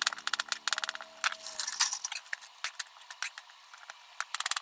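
Kitchen knife cutting daikon radish peel into thin strips on a wooden cutting board: quick light taps of the blade on the board, fast and close together for the first couple of seconds, then sparser and uneven.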